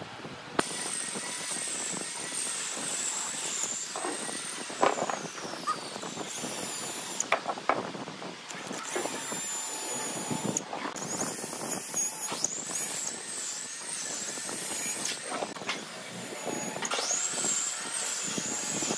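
Cordless drill running with a high-pitched motor whine as it bores into wooden blocks. It speeds up and slows down several times, with short stops and a few sharp clicks between holes.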